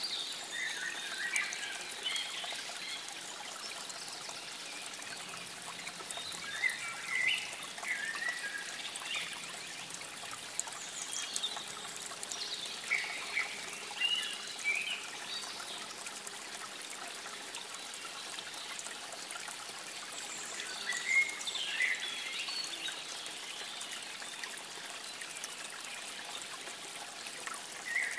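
Water trickling steadily over stones, with small birds chirping and singing in short bursts every few seconds.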